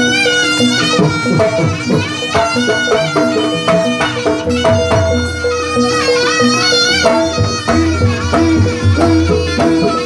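Live Javanese jaranan music: a shrill, reedy lead melody that bends and wavers, over steady drumming and repeated gong-chime notes.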